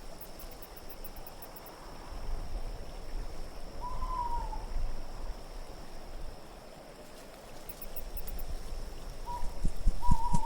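Wind blowing in slow swells and lulls, with a short falling hoot-like call about four seconds in and another starting near the end.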